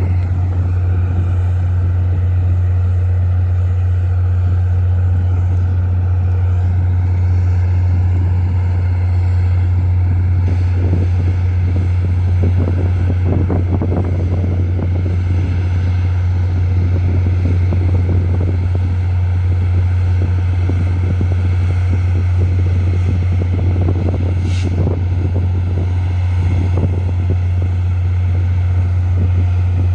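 Diesel-electric freight locomotive running steadily at close range: a deep, unbroken engine drone with a strong low hum.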